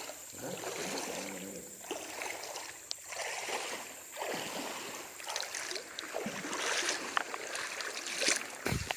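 Creek water sloshing and splashing in repeated swells about once a second as a person wades through waist-deep water. A single dull thump comes just before the end.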